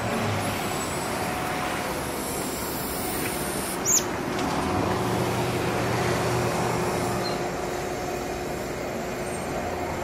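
Steady rumble of motor traffic with a low hum, and a brief high, falling tone about four seconds in.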